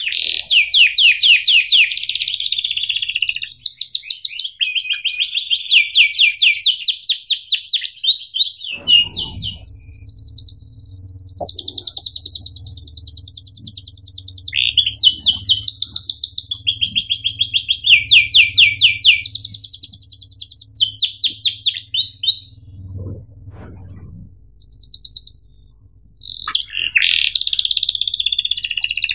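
Domestic canary singing in long rolling trills: fast runs of evenly repeated high notes, phrase after phrase, some speeding up into a buzz-like roll. There is a brief pause about two-thirds of the way through.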